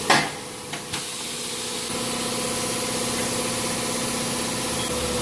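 Pneumatic tire changing machine at work: a short blast of air hiss at the start, then a steady mechanical hum from about two seconds in.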